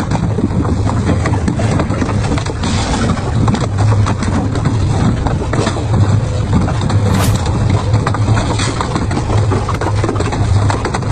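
Double-shaft shredder running with a steady low hum, and a dense stream of crackling and crunching as its shaft cutters grab and break up plastic motor oil jugs.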